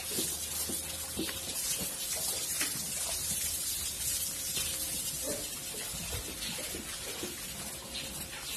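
Steady hiss of running water, with scattered light knocks.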